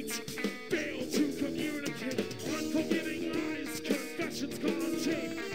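Live rock band playing, with singing and guitar over a steady beat, picked up by a webcam microphone and poorly mixed.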